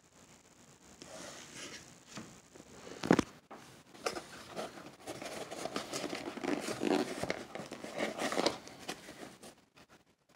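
Corrugated cardboard mailer box being torn and pulled open by hand: a sharp rip about three seconds in, then several seconds of crackling, scraping cardboard as the flaps are worked open.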